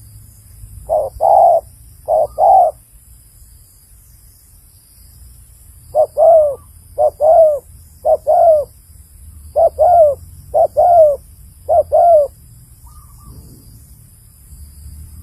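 Spotted dove cooing in eight two-note phrases, each a short note followed by a longer, lower-ending coo. There is a pause of about three seconds after the second phrase, and the rest come about one a second.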